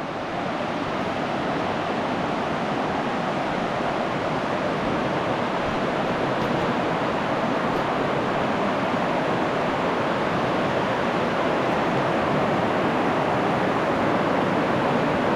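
Rushing river water: a steady hiss that grows gradually louder.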